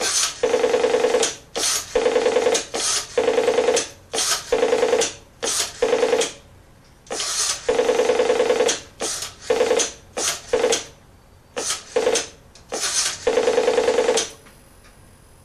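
Western Electric payphone giving a rattling electromechanical buzz in more than a dozen irregular bursts, each a fraction of a second to about a second long. The bursts stop shortly before the end.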